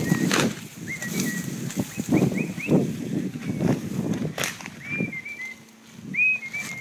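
A person pushing on foot through dense bracken and brambles: steady crunching and rustling of vegetation with sharp cracks of snapping stems, easing off about five seconds in. Short high bird-like chirps sound over it several times.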